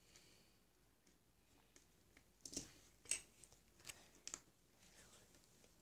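Small plastic Lego pieces clicking and tapping as they are handled and fitted together: faint handling, then a few sharp clicks in the middle.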